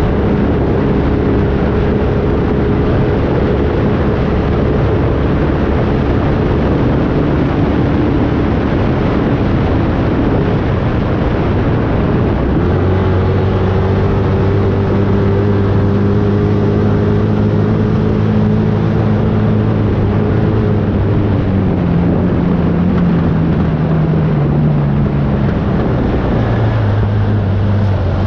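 An engine running steadily over a loud rushing noise. Its pitch rises about twelve seconds in, holds, then drops back in steps over a few seconds near the end.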